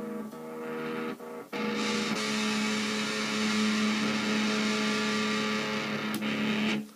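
Electric Strat-style guitar played through a Line 6 Uber Metal distortion pedal, on its dirty side. A chord rings, then about a second and a half in a louder, heavily distorted chord is struck and held for about five seconds before it is cut off just before the end.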